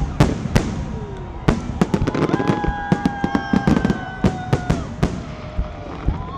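Fireworks display: a rapid series of sharp bangs and crackles from shells bursting overhead, with a steady whistling tone for a couple of seconds in the middle.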